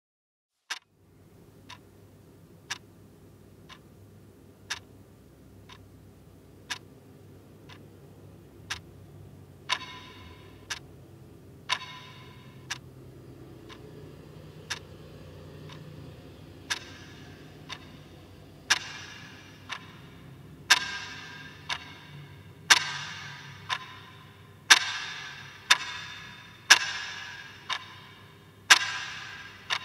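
A clock ticking about once a second over a low steady hum, starting about a second in. The ticks grow steadily louder, and from about ten seconds in every other tick rings on briefly after it.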